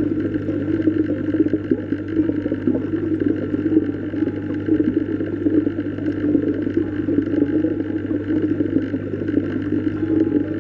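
Steady, muffled underwater water sound: a dense churning wash over a constant low hum.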